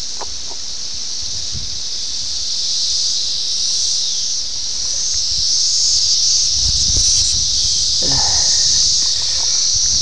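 Chorus of 17-year periodical cicadas (Brood X): a steady, loud, high-pitched drone that swells a little about six seconds in.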